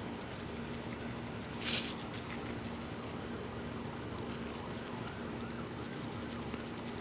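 Plastic spice shaker of dry brisket rub shaken over a raw beef roast, with a short hissy spray of granules about two seconds in. Under it, a faint steady hum and a faint chirp that rises and falls about three times a second.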